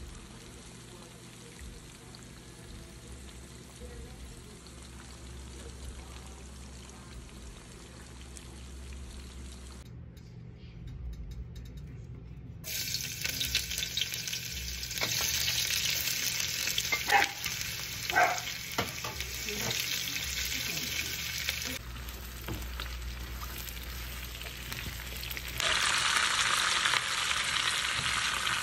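Hot oil frying in a wok, heard as several cut-together stretches: a quieter steady bubbling of battered chicken pieces deep-frying, then a much louder sizzle as chopped garlic and onion go into hot oil, with a few sharp clicks of a utensil against the pan about halfway through. Near the end comes another loud sizzle as bell peppers and onion are stir-fried.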